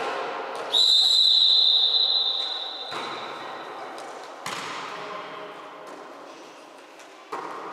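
Referee's whistle blown in one long steady blast, followed by a volleyball being struck three times, each hit a sharp slap echoing in the sports hall.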